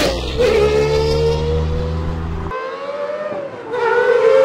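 Gordon Murray T50's 3.9-litre naturally aspirated V12, running in an Ultima GTR test mule, revving hard at a high, mostly steady pitch. The pitch dips briefly right at the start and again about three and a half seconds in, then climbs back.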